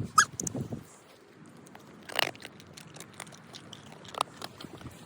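A dog biting and chewing, with scattered clicks and crunches; the loudest crunch comes about two seconds in.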